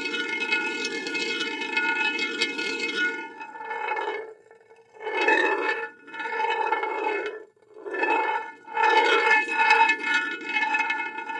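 Glass marble rolling on a metal surface: a steady rolling rumble with a metallic ring of several steady tones. A little over three seconds in it fades away, then comes back in several short swells that each rise and fade, before rolling steadily again near the end.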